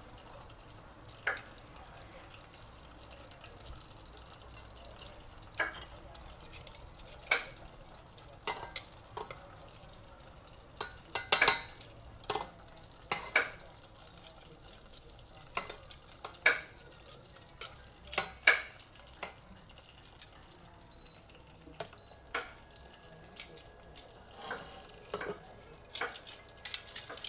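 Knife knocking irregularly on a cutting board as garlic is cut, in short sharp strikes over a faint steady hiss.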